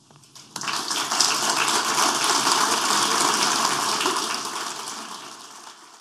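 Audience applauding: the clapping starts about half a second in, holds steady, then dies away near the end.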